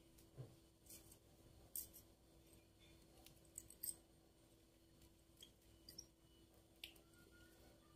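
Near silence with a few faint, scattered clicks of jewellery pliers and crystal-beaded copper-coloured wire being handled, over a faint steady hum.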